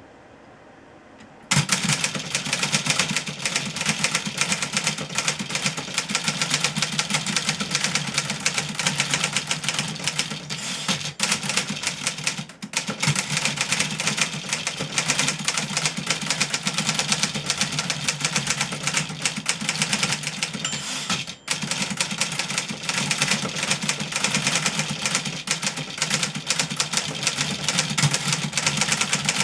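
Fast typing on a fully serviced 1963 Remington Model 11 manual portable typewriter: a dense, continuous stream of rapid key strikes that begins about a second and a half in, with a couple of brief pauses.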